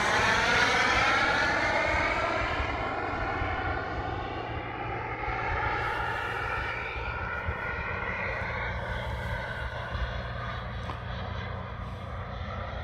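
Twin KingTech K-85 model jet turbines of a Mibo A-10 Warthog in flight: a steady turbine rush with a sweeping, phasing tone as the jet passes, fading over the first few seconds as it flies away, then holding at a lower level.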